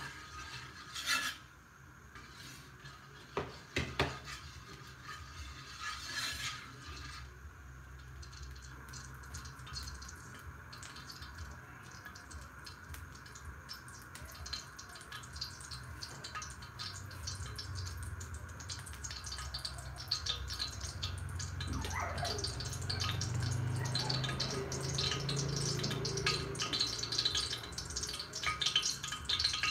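Cooking oil heating in an aluminium wok, starting to crackle faintly and building slowly toward a sizzle as it gets hot. A metal ladle clinks against the wok a few times near the start.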